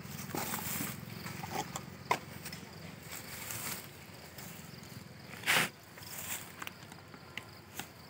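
Honey bees humming steadily around open wooden hive boxes, with light knocks and rustles as the hives' wooden covers are handled. There is one louder rustling scrape about five and a half seconds in.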